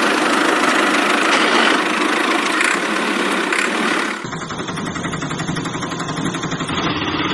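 Engine sound effect dubbed over toy vehicles: a harsh engine running, cut about four seconds in to a different, lower-pitched engine idling with a fast, even beat.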